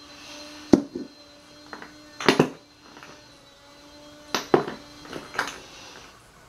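Hard containers knocking and clinking as they are handled and set down on a work table: several sharp knocks, mostly in pairs, some leaving a brief ringing tone.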